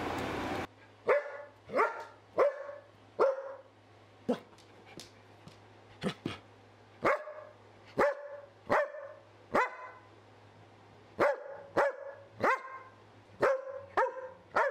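A dog barking in a long series of short, sharp barks, about one every two thirds of a second, with a pause of a second or so midway. A steady fan-like hiss cuts off just under a second in, before the barking starts.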